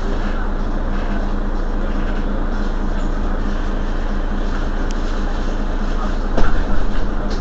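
Mercedes-Benz Citaro Facelift city bus standing at a stop with its rear engine idling in a steady low hum. A brief sharp, loud noise comes about six seconds in, followed by a second of uneven louder noise.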